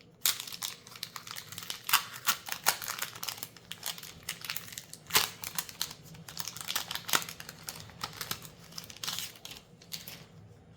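Crinkling of a Magic: The Gathering collector booster pack's foil wrapper as it is handled and opened, with many irregular sharp crackles.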